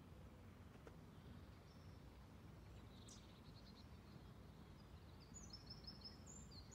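Near silence: quiet outdoor ambience with faint songbird calls, a short run of high notes about three seconds in and a series of higher chirps near the end.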